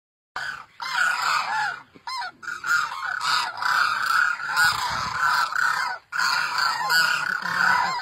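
A flock of demoiselle cranes calling, many overlapping short calls that rise and fall in pitch, with brief breaks about two and six seconds in.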